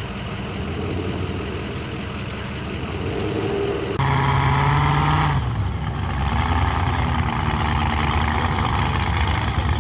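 The blown rat rod's supercharged engine idling with an uneven, lumpy run. About four seconds in, a louder vehicle sound comes in suddenly, with a held tone for about a second and a half, and then engine noise continues.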